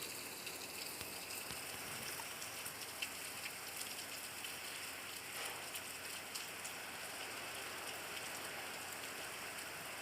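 Steady rain falling, a constant hiss with scattered drop ticks.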